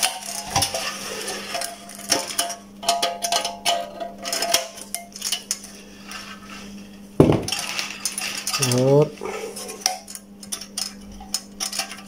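Metal and ceramic clinking and knocking as a ceramic terminal connector is handled and pressed into an electric heater's metal reflector bowl, with a few brief metallic rings and one louder knock about seven seconds in. A steady low hum runs underneath.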